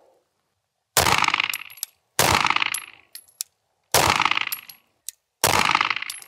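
Four pistol shots from a 2011-style double-stack pistol, fired at a slow, uneven pace about one to two seconds apart. Each shot rings out briefly, and short light metallic ticks follow most of them.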